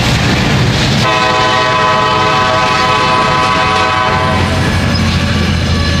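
Diesel locomotive horn blowing one long blast of about three seconds, starting about a second in, then sounding again right at the end. Under it runs the low rumble of the passing train.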